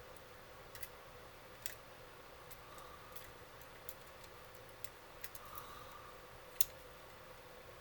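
Scattered light clicks and taps of small hardware being handled and fitted by hand, with one sharper click near the end.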